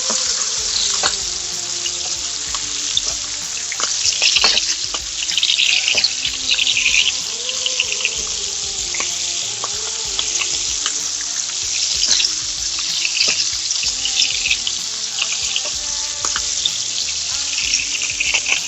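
Two New York strip steaks sizzling and crackling steadily in hot garlic butter in a frying pan, with scattered sharp clicks.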